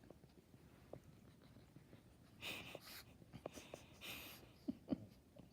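A dog making faint snorting breaths and grunts while her face is rubbed: two noisy puffs of breath about halfway through, then two short low grunts near the end.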